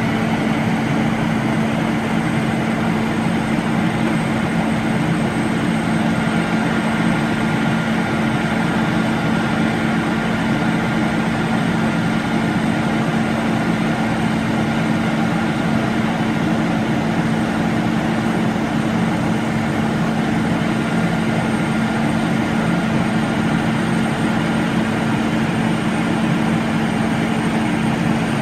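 Diesel engine of a truck-mounted Hiab knuckle-boom crane running steadily at one constant speed to drive the crane's hydraulics. A faint high steady whine joins in about six seconds in.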